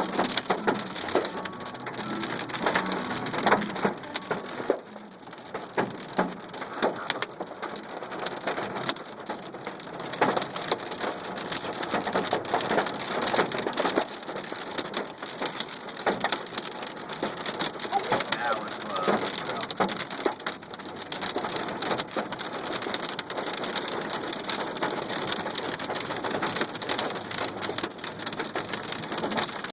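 Hailstones and rain pelting down, a dense, continuous clatter of many sharp impacts over a steady hiss of rain.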